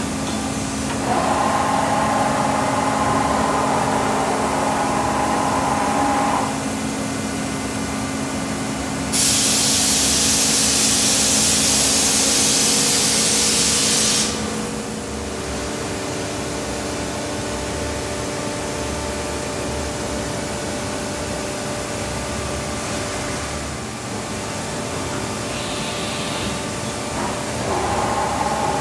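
Haas VF-7/40 vertical machining center running, with steady machine whines that change pitch a few times. A loud steady hiss comes in for about five seconds midway.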